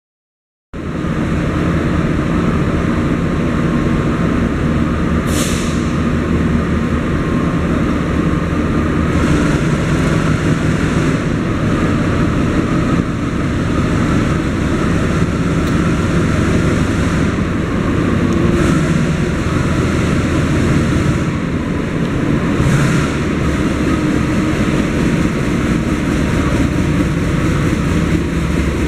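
A diesel-electric locomotive's engine runs with a steady low drone, starting about a second in, with a few short hisses.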